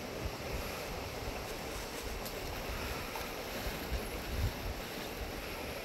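Wind on the microphone: a steady rushing hiss with uneven low buffeting.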